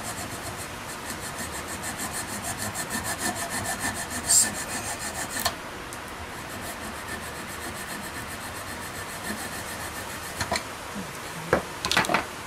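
Hand coping saw cutting a block of wood clamped in a vise, in quick, even back-and-forth strokes of about three a second. The sawing stops about five and a half seconds in, and a few sharp knocks follow near the end.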